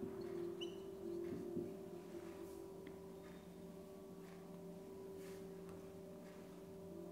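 Steady low hum, with a marker squeaking briefly on a whiteboard about half a second in and a few faint marker strokes after it.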